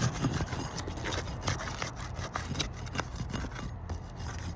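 A roof snake scraping under a three-tab asphalt shingle as it is pried loose: irregular rasping and scraping with many small clicks and crackles.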